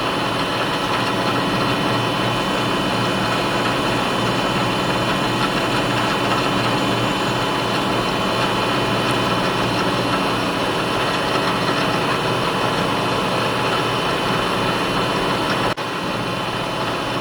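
Milling machine spindle running steadily with a 1/16-inch end mill taking a cut along the side of a small plastic part, with a steady high whine. The sound dips briefly near the end.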